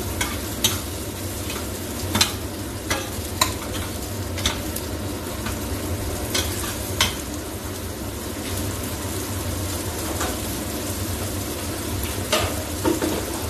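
Sliced bitter gourd and tomatoes sizzling in oil in a frying pan over a steady low hum, with scattered sharp clicks of a utensil knocking against the pan as the vegetables are stirred.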